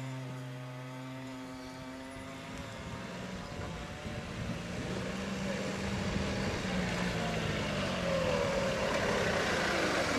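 A Daihatsu Hijet kei truck's small engine running as the truck drives in slowly, growing louder and shifting slightly in pitch as it comes close. A held music chord fades out in the first couple of seconds.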